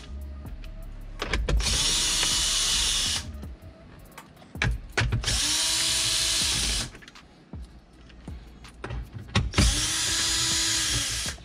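Power drill with a 7 mm socket backing out the bolts that hold a car's factory head unit in the dash. It makes three spin-ups of about a second and a half each, its whine rising as it speeds up and falling as it stops. Small clicks and knocks of the tool being moved from bolt to bolt come between the runs.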